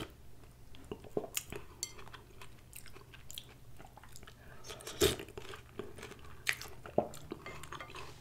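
Close-miked eating sounds of tomato soup taken off a metal spoon: sipping and chewing, with a few sharp clicks scattered through.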